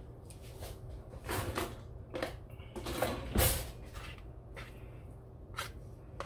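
Wooden spatula and metal spoon scraping and knocking while thick, sticky ube-mung bean halaya is spread onto banana leaves on a plate. The sound is a series of short, irregular scrapes and knocks, the loudest about three and a half seconds in.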